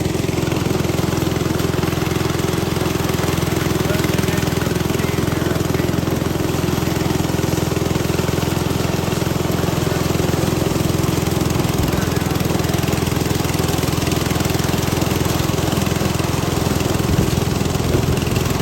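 Small engine of a portable corn sheller running steadily at a constant speed.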